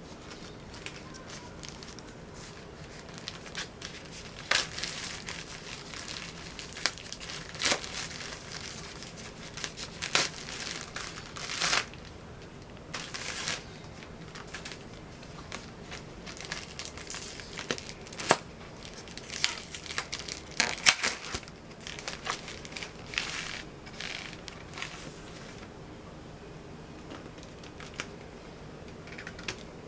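Clear plastic inflatable air-column packaging crinkling and crackling as it is handled and pulled open, in irregular bursts with a few sharp cracks, loudest a little past the middle.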